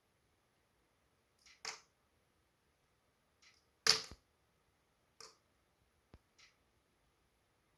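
Wood fire in a fireplace crackling: scattered sharp pops and snaps a second or so apart, the loudest a sharp double snap about four seconds in.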